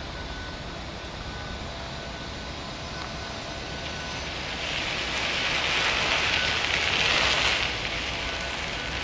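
Steady outdoor city background rumble. About halfway through, a hiss swells up for about three seconds and then drops away quickly.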